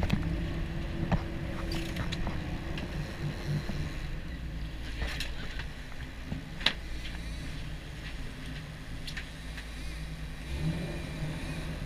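Boat engine running steadily under way, with wind and water noise over it and a few sharp clicks or knocks, the loudest about seven seconds in.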